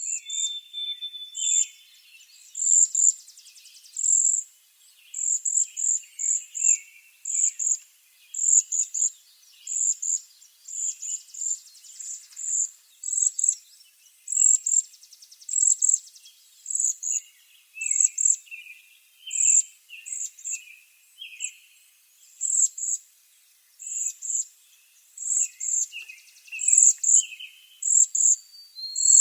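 Waxwings calling: short, very high, thin notes repeated about once or twice a second, with softer lower trilled notes underneath.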